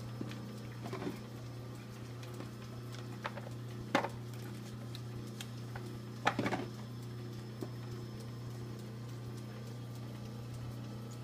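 A few sharp clicks and a short rattle of bobbins being handled in a plastic drawer and fitted into a metal bobbin case, over a steady low hum. The loudest click comes about four seconds in, the rattle about two seconds later.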